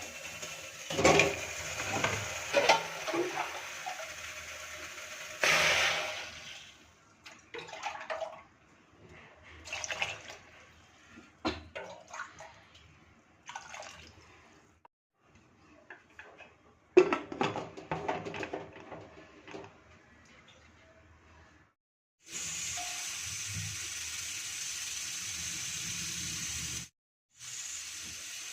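Kitchen water sounds: water splashing and pouring with irregular clatters of handling, then a tap running steadily for about five seconds that shuts off abruptly.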